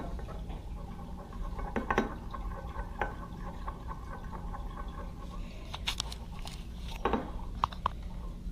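Colorant being stirred into liquid plastisol in a glass measuring cup: a few light, scattered clicks and taps of the metal stirrer against the glass, over a low steady hum.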